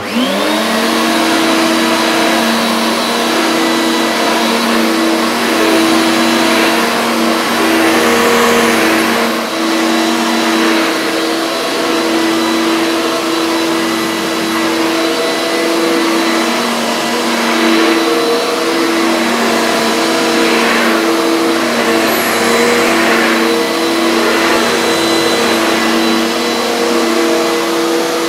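Electrolux Power System Z1710 1400 W bagged upright vacuum cleaner switching on, its single-speed motor rising briefly in pitch and settling into a low-pitched hum with a faint high whine. The noise swells and eases as the cleaner is pushed back and forth over carpet.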